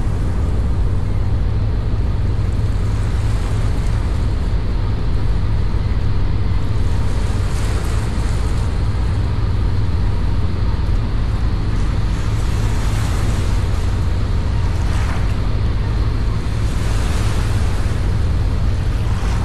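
Steady low rumble of a small boat under way, with rushing water and wind on the microphone that swell now and then.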